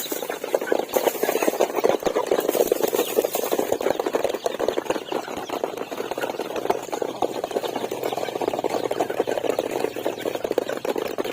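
A flock of chickens clucking, a dense continuous chatter of many birds at once.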